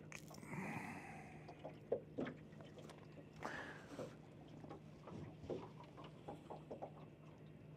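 Faint scattered clicks and soft rustles of fishing tackle being handled by hand in a boat, over a low steady hum.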